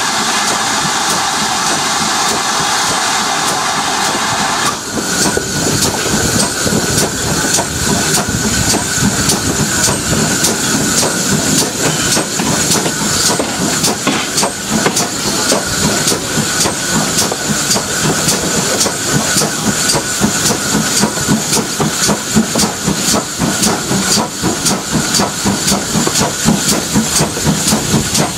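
GWR 52xx-class 2-8-0 tank steam locomotive heard from the cab side: a loud steady hiss of steam that cuts off abruptly about five seconds in, then the rhythmic beat of the engine working and the clatter of its wheels over the rails as it runs along.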